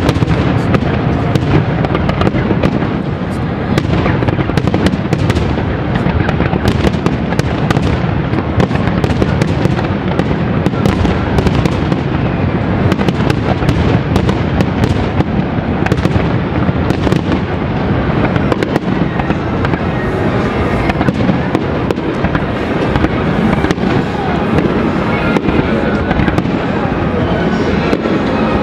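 Aerial fireworks display: a dense, continuous barrage of shell bursts and crackling, with many sharp bangs in quick succession over a steady rumble.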